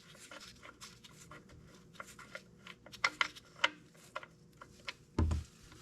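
Light, irregular clicks and scraping of a wrench working the oil drain plug loose on a diesel compact tractor's oil pan, with a short low thud just after five seconds.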